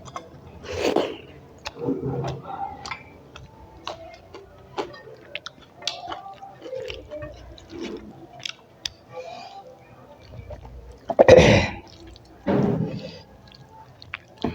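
Close-miked eating: chewing and wet mouth sounds with many small clicks and smacks, and a few louder bursts, the loudest two near the end.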